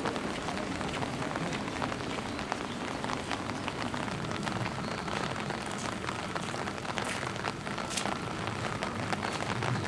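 Steady rain falling on wet paving and stone, a dense patter of individual drops, with a few sharper drop ticks about seven and eight seconds in.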